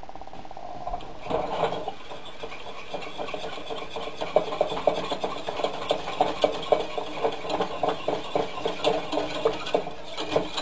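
Wire whisk beating roux and water in a small stainless steel saucepan: a quick, steady rhythm of scraping clinks against the pan's sides that starts about a second in. The roux is being whisked smooth and thinned with water for beef gravy.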